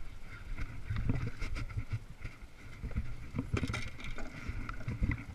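Irregular knocks, clicks and rubbing from fishing gear being handled aboard a small boat, over a low rumble of wind on the microphone.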